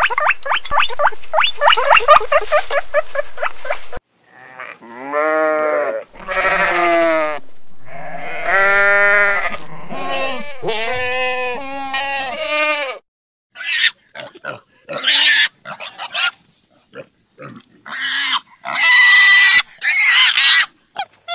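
A rapid run of high, evenly repeated chirps for about four seconds. Then a flock of sheep bleating, several calls overlapping. In the last stretch, piglets squeal in short, shrill bursts.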